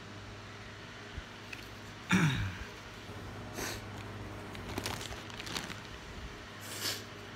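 A person's short falling vocal noise about two seconds in, then handling of a deck of trading cards: light clicks and brief rustling hisses, over a steady low hum.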